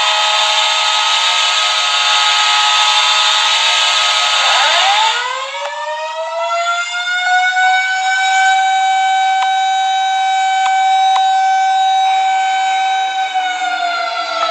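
Hockey goal horn sounding a loud, steady chord that cuts off about five seconds in as a goal siren winds up from low pitch to a steady high tone, holds it, and begins to wind down near the end.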